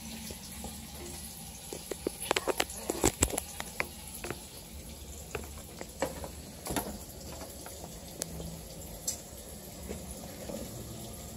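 Sharp clicks and clatter of kitchen handling, a quick run of them about two to four seconds in and scattered ones after, over a low steady hum.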